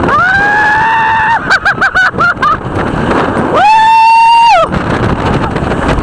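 Roller coaster riders screaming over rushing wind and the noise of the moving train. A long scream is followed by a quick run of short yelps, and then another long, high scream about halfway through.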